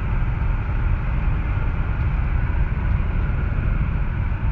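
Steady road and engine noise inside a vehicle's cabin while driving at highway speed, a low rumble with a lighter hiss of tyres and wind.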